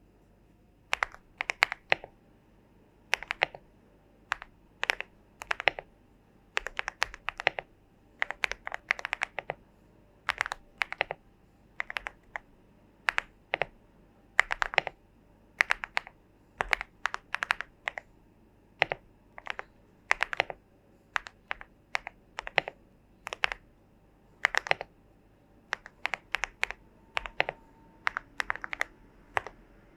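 Typing on a Leobog Hi75C Pro gasket-mount mechanical keyboard with Akko Crystal Blue switches, a PC plate, full foam and FBB GVK2 keycaps, a thocky keystroke sound. The keystrokes come in irregular bursts of a few presses with short pauses between them.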